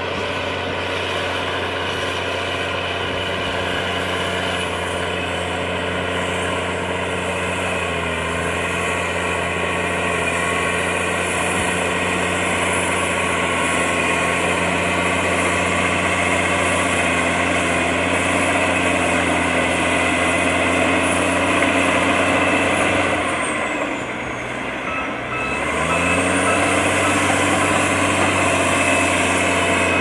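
Dressta TD-40E crawler bulldozer's diesel engine running hard as the dozer pushes a load of earth, with a steady high whine over the engine note. Late on, the engine drops away for a couple of seconds, the whine falling with it, then picks back up.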